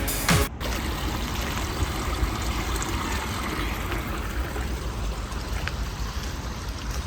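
Background electronic music cuts off about half a second in, followed by a steady rushing noise with a heavy low rumble.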